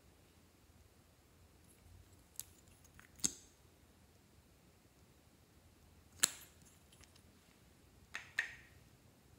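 About five short, sharp clicks and taps from a small plastic cosmetic bottle being handled and applied over white slime in a glass dish. The loudest comes about two-thirds of the way through, and a quick double click comes near the end.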